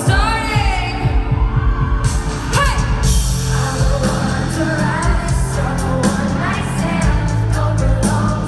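Live pop music from an arena concert heard from within the audience: a woman singing into a microphone, with sliding notes, over heavy bass, keyboards and drums.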